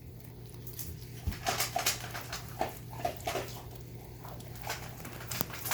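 A dog eating, with a run of short crunching and chewing clicks and a few brief high whimpers.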